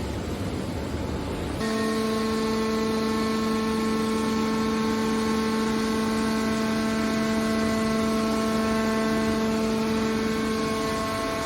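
Hydraulic baler for aluminium cans running. A noisy mechanical rumble is joined about a second and a half in by a steady machine hum that holds unchanged.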